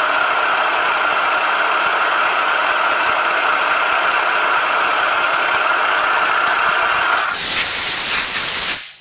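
Drilling machine's spindle running steadily as a small drill bores a hole in an aluminium wheel hub: a loud, even whir with hiss. About seven seconds in, a brighter hiss takes over for a second and a half before the sound stops.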